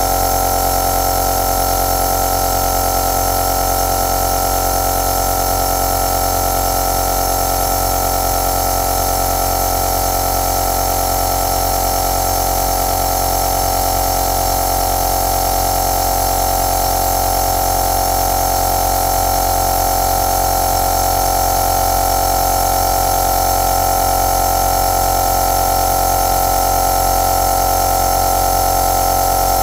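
Compressor nebulizer running steadily: an even motor hum with a hiss of air, unchanging throughout.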